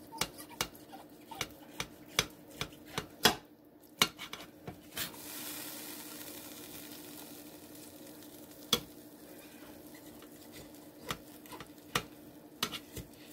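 A metal fork and table knife clicking and scraping against a slow-cooker crock while pushing onion rings and seasoning off a cooked pork loin roast: a quick run of clicks in the first few seconds, then scattered taps, over a faint steady hum.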